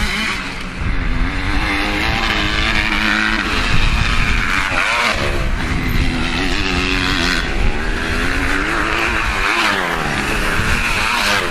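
Dirt bike engine revving, its pitch rising and falling several times as it speeds up and eases off.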